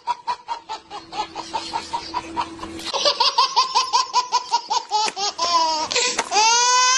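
Baby laughing hard in a rapid string of short pulses, about five a second. The laugh gets louder about three seconds in and ends in a long, rising, high squeal.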